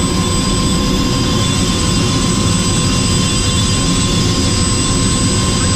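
Helicopter engine and rotor running steadily: a dense, even rumble with a constant high whine over it.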